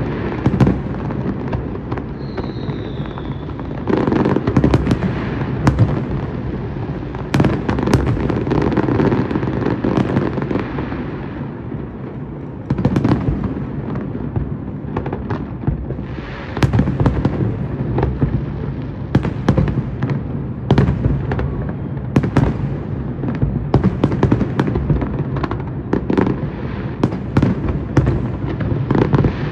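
Fireworks going off in quick succession: a dense run of sharp bangs and crackles over a continuous low rumble of booms. A brief high whistle sounds about two seconds in.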